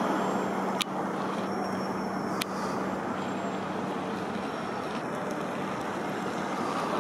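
Steady city road-traffic noise, with a low steady hum that stops a little past halfway and two sharp clicks about a second and a half apart.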